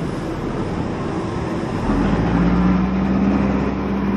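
Street traffic noise, with a large motor vehicle's engine humming close by from about two seconds in.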